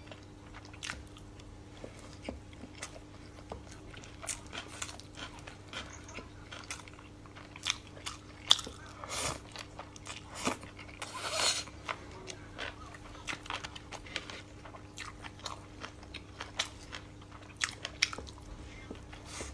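Close-miked chewing and biting of sushi rolls: soft irregular mouth clicks and smacks. Two longer, noisier sounds come about nine and eleven seconds in.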